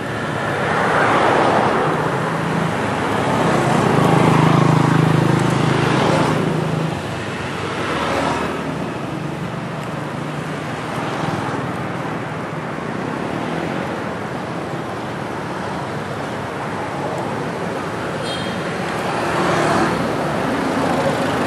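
Road traffic: a motor vehicle's engine hum swells and passes about three to seven seconds in, over a steady traffic noise.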